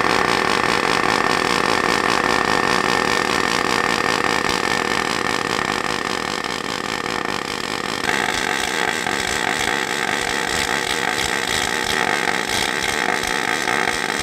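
Pulsed MIG welding arc from a Migatronic Automig 300 Pulse set to double pulse, running steadily on aluminium with 1.2 mm AlSi5 wire under argon. About eight seconds in the sound steps up a little louder as the second weld, on 2 mm aluminium, takes over.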